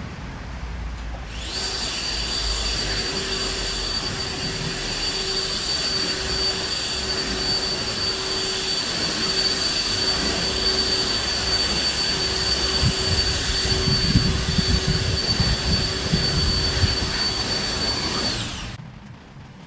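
Kress 60V cordless brushless blower running at a steady high whine, switched on about a second and a half in and winding down near the end.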